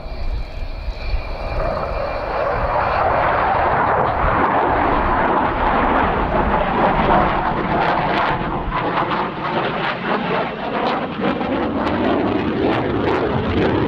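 Saab 35 Draken's single afterburning Volvo RM6 turbojet (a licence-built Rolls-Royce Avon) in a display pass with the afterburner lit: a loud rushing jet roar that swells about two seconds in, turning ragged and crackling in the second half.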